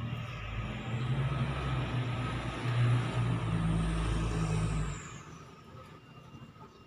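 A low motor rumble with hiss, loud for about five seconds and then dropping away sharply, with a faint high whine sliding down as it fades.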